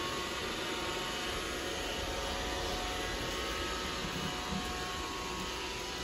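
iRobot Roomba robot vacuum running across a hardwood floor: a steady whir of its motor and brushes.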